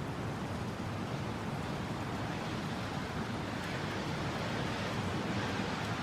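Steady rushing wind, an even broad hiss without gusts or whistles, growing slightly louder toward the end.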